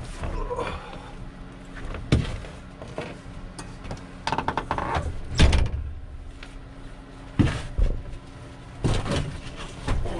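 A string of knocks, thumps and rustles as someone climbs into a truck-bed camper shell and handles its door. A low, steady hum runs underneath.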